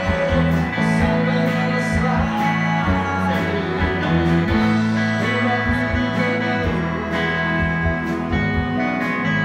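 Live band playing a song: acoustic guitar, electric bass, fiddle, keyboard and a steady drum beat, with singing.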